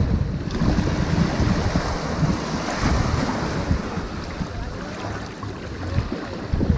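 Ocean surf washing onto a sandy beach, the wash swelling about half a second in and slowly easing off, with wind buffeting the microphone in a low rumble underneath.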